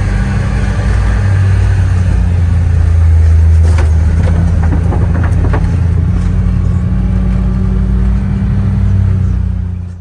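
Engine of a farm vehicle running steadily with a low, even hum while riding, with wind noise over it; the sound stops abruptly at the end.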